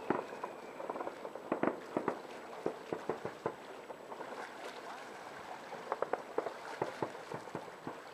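Distant aerial fireworks bursting: an irregular series of bangs and pops that comes in clusters, with short gaps between them.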